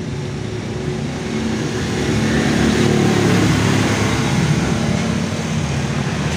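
A motor engine running steadily, growing louder about two seconds in.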